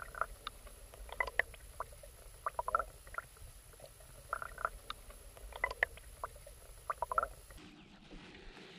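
Water lapping and slapping against a small fishing boat's hull in short clusters every second or so, over a low steady rumble that cuts off near the end.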